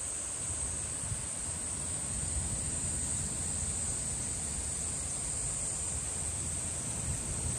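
A chorus of cicadas singing in the trees, a steady high-pitched drone, over a low rumble of wind on the microphone.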